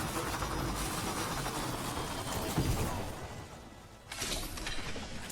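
Video game sound effects: a steady rushing noise with a low thud about two and a half seconds in. It fades to a dip near four seconds, then comes back suddenly.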